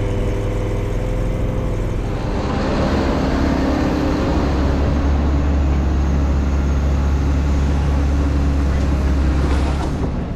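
Engine running steadily with a low drone that grows deeper and louder about two seconds in, as if under load, and eases off near the end.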